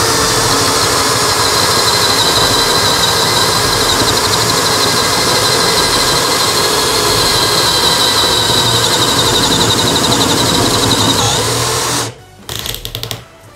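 Bosch GSB 185-LI 18 V cordless drill in first gear, driving a 32 mm spade bit into pine, runs steadily under load with a high, wavering whine for about twelve seconds, then stops, followed by a few brief bursts. The bit is slipping in the chuck, which has loosened.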